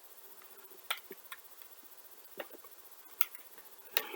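Light, irregular clicks and taps of a gel blaster's plastic and metal parts being handled and unscrewed, about five sharp ones with the loudest near the end.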